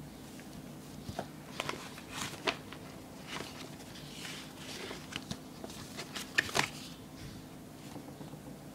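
Handling noise: scattered light clicks and short rustles, the loudest pair about six and a half seconds in, over a faint steady hum.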